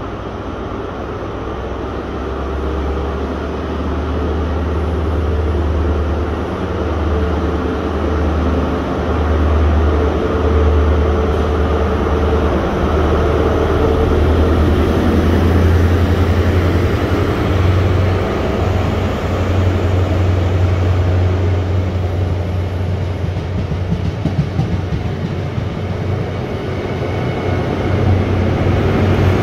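High Speed Train with Class 43 diesel power cars running along a station platform. The engines' steady drone grows louder as the leading power car approaches and passes, then the coaches roll by.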